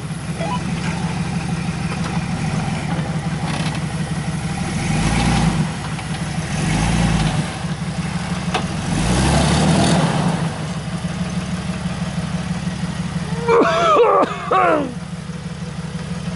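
Jeep Wrangler YJ engine running at low speed as the Jeep crawls off-road, with the throttle opened in three short surges that swell and fade.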